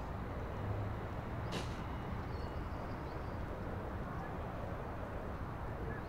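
Steady background hiss and hum of ambient noise, with one short click about a second and a half in.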